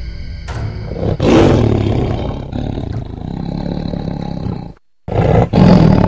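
A tiger roaring: a sudden, loud, long roar about a second in, then after a short break a second loud roar near the end.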